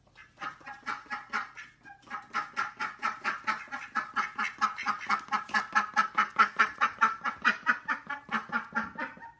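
An animal calling in a fast, even run of short repeated notes, about five a second, that pauses briefly near two seconds in and then keeps going.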